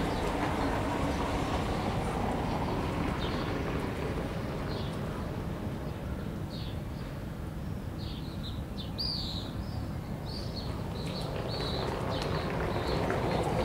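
Steady low rumble, with small birds chirping in short repeated calls from about three seconds in, most often in the second half.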